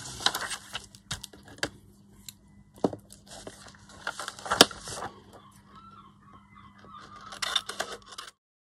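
Paper rustling and crinkling as a dictionary page and card pieces are handled and set down on a cutting mat, with several sharp taps and clicks, the loudest about halfway through. The sound cuts off abruptly near the end.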